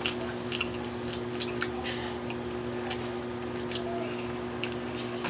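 Close-up chewing of braised pork leg: irregular wet smacks and mouth clicks, over a steady low hum.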